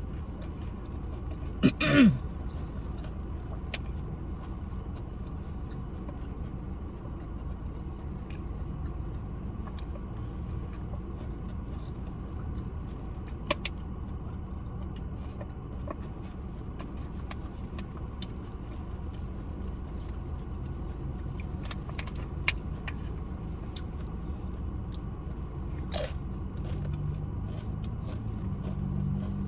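Steady low rumble of heavy rain outside, with scattered small clicks and taps from eating.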